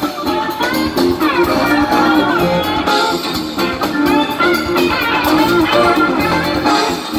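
A live rock band playing at full volume: two electric guitars over drums and keys, with a slide guitar gliding up and down in pitch a second or two in.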